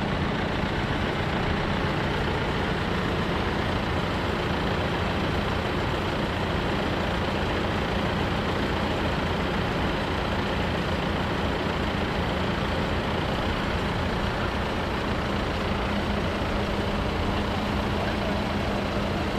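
Diesel engines of a long line of tractors and lorries idling together in a steady, low drone.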